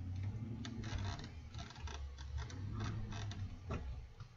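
Camera handling noise: a scatter of sharp clicks and knocks as the camera is moved, over an uneven low rumble.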